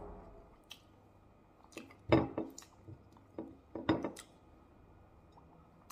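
Someone eating a vegan bacon sandwich: chewing a bite and handling the bread and a tomato slice, giving a handful of short sounds, the loudest about two seconds in and another pair near four seconds.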